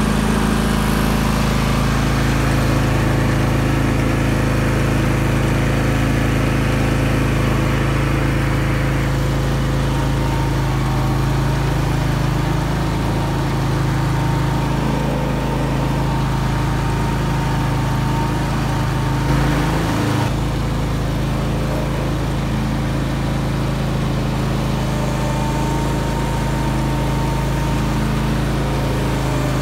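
John Deere 584 riding mower's engine running steadily while it carries a working 25-gallon boom sprayer, with a brief wobble in its note about two-thirds of the way through.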